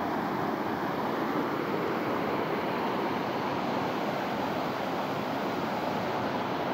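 Creek in flood after heavy rain, muddy water rushing steadily over rocks.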